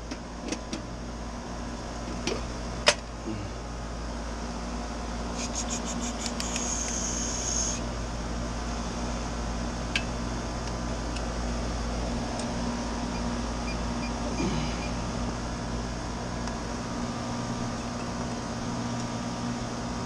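Steady machine hum of air-conditioning equipment running, with a few sharp clicks and a quick run of clicks midway from the metal electrical disconnect box being opened and its pull-out handled.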